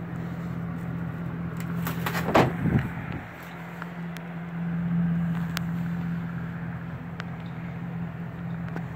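Idling vehicle engine, a steady low hum, with a few light clicks and a short louder sound about two and a half seconds in.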